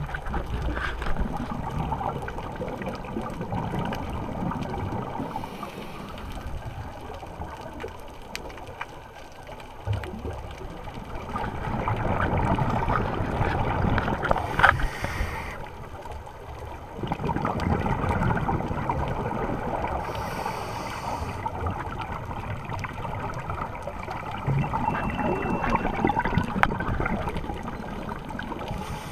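Scuba regulator breathing heard underwater: swells of gurgling exhaled bubbles a few seconds long, repeating with each breath, with short hisses between them.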